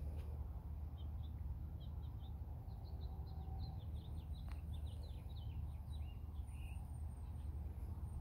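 Small songbirds chirping, a quick scatter of short, high chirps through the middle, over a steady low rumble.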